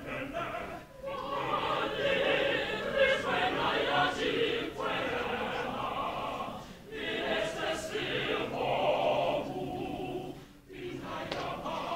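Mixed choir of men's and women's voices singing in full, in sung phrases broken by short pauses about a second in, near seven seconds, and shortly before the end.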